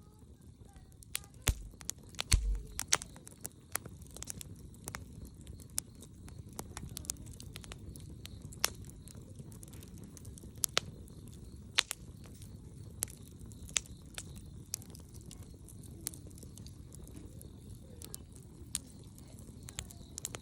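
Wood campfire crackling, with irregular sharp pops a second or so apart over a low steady rushing noise. Two louder knocks with a dull thump come about two seconds in.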